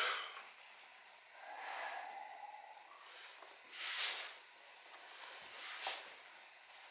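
A man breathing out audibly: a faint breathy sound, then two short, sharper exhales about four and six seconds in.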